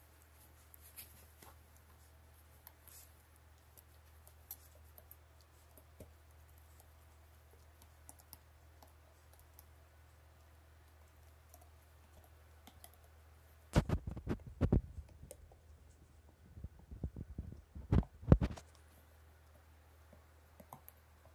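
Dog chewing a rubber Kong Widget toy: scattered faint clicks of teeth on rubber, then two spells of loud, rapid chomping clicks, the first about two-thirds of the way in and the second a couple of seconds later.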